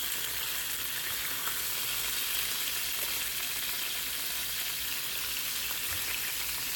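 Chicken pieces browning in hot oil in a stainless steel skillet, a steady frying sizzle, with a few faint clicks of metal tongs turning the pieces.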